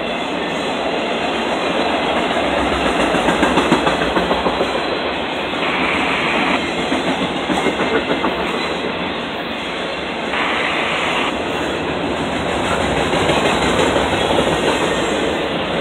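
Intermodal freight train cars rolling past close by, steel wheels clattering over the rail joints. The clickety-clack swells each time a set of wheels goes by.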